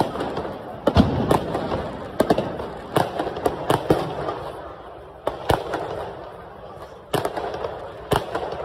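Fireworks bursting overhead: a fast, irregular run of sharp bangs, about a dozen of them, over a steady crackle, thinning out for a few seconds in the middle.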